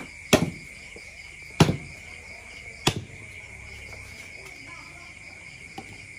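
Cleaver chopping pork belly on a wooden chopping block: three sharp knocks about a second and a quarter apart, then a fainter one near the end. A steady chorus of crickets runs underneath.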